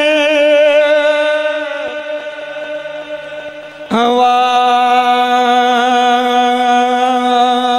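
A man chanting a Punjabi devotional verse in long held notes, with no instruments. His first note trails off about two seconds in, and a slightly lower note starts sharply about four seconds in and is held.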